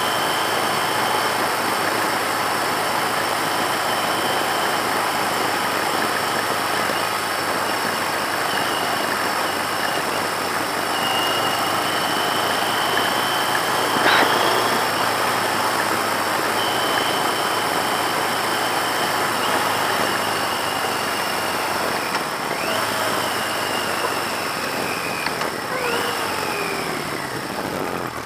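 1982 Yamaha XJ650 motorcycle under way, its air-cooled inline-four engine running steadily under a heavy wash of wind and road noise. The engine note falls twice near the end.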